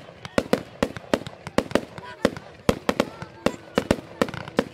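Fireworks going off in quick succession: a steady run of sharp bangs and cracks, about three a second.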